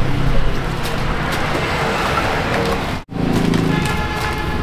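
Road traffic noise with a brief, sudden gap about three seconds in.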